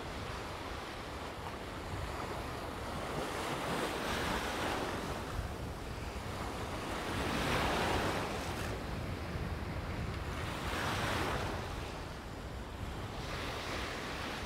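Sea waves washing and breaking around a wader, surging in repeated swells every few seconds, loudest about halfway through.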